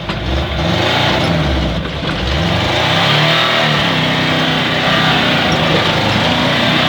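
LuAZ-969A's air-cooled V4 engine labouring in four-wheel drive up a steep hill. The revs rise and fall several times as the load changes.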